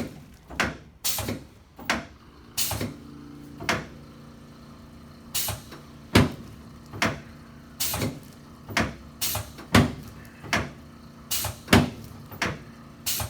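A series of sharp knocks or clacks, about fifteen of them at irregular intervals of roughly one a second, over a faint low steady hum.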